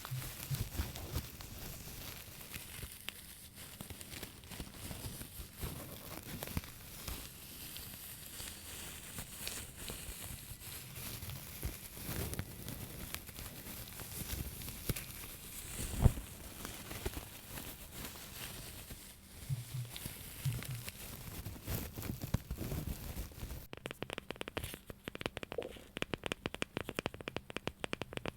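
Close-miked crinkling and scratching on a handled object, with scattered soft knocks and one sharp knock about halfway through. Near the end the sound changes to fast, even tapping.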